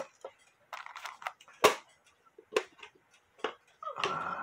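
Scattered light knocks and clicks of a wooden clock case being handled and turned over on a workbench, one sharper knock a little under two seconds in, then a short scrape of wood near the end.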